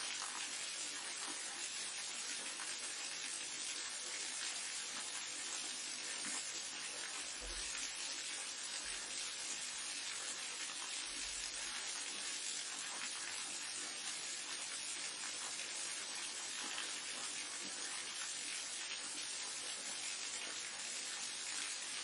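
Waterfall: a steady rush of falling water, an even hiss with little deep rumble.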